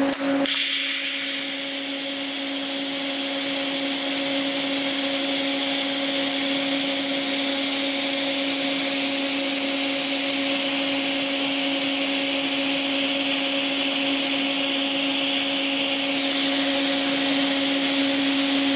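TIG (GTAW) welding arc laying a tack weld on a stainless steel 2-inch SCH10 pipe joint. The arc catches about half a second in and runs as an even, steady hiss, with a steady hum underneath.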